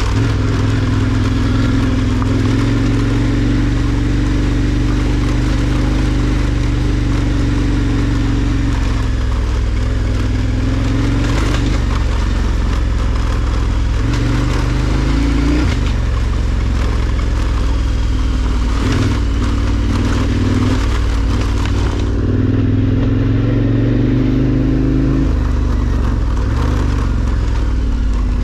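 KTM 1290 Super Adventure R's V-twin engine running at low revs as the bike rides slowly along a dirt track, the revs dipping and picking up again a few times. A few sharp knocks from the wheels on the rough surface come through.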